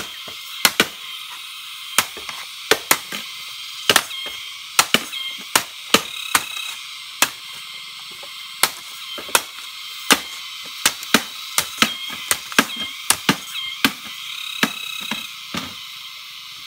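Chopping strikes on wood, sharp and irregular, about one or two a second, over a steady high-pitched background.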